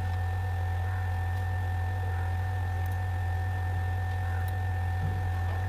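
Steady low electrical hum with two faint constant whining tones above it, and a few faint clicks.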